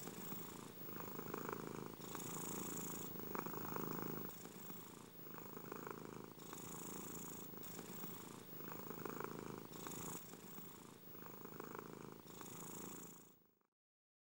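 Domestic cat purring close to the microphone, the purr swelling and easing with each breath in and out, about once a second. It cuts off near the end.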